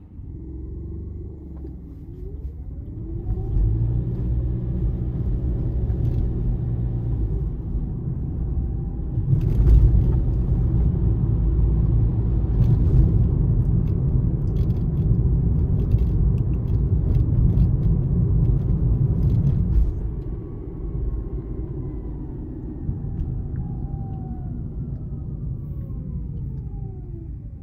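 A car driving through city traffic: low engine and road rumble that builds about three seconds in, is loudest through the middle and eases off about twenty seconds in, with faint whines rising and falling in pitch.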